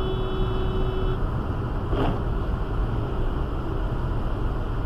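Steady road and wind noise inside a car cruising at about 140 km/h, heard through a dashcam. A short steady electronic tone sounds over it for about the first second.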